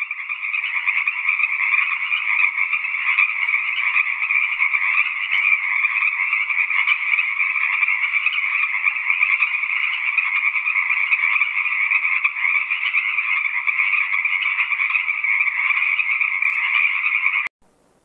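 Frogs calling in a loud, steady, unbroken chorus that cuts off suddenly near the end.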